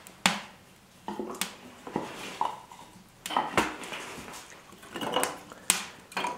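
Freshly lit kindling fire crackling in the firebox of a wood cook stove, with a string of sharp, irregular pops.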